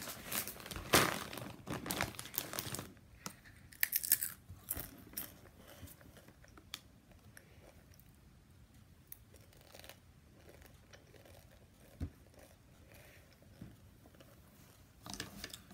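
A crinkly foil chip bag being handled, crinkling and rustling in loud bursts through the first few seconds, then only faint rustles and small clicks, with a single knock about twelve seconds in.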